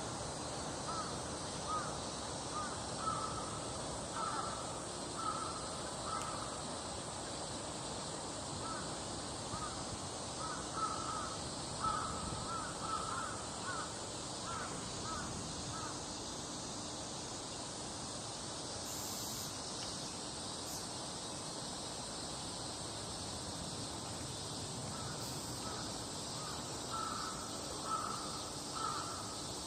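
An animal calling in runs of short, repeated calls at one pitch, over a steady background hiss. The calls stop about halfway through and start again near the end.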